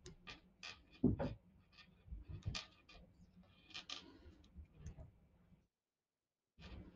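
Metal knitting needles clicking and tapping faintly and irregularly as stitches are worked, with a slightly louder knock about a second in.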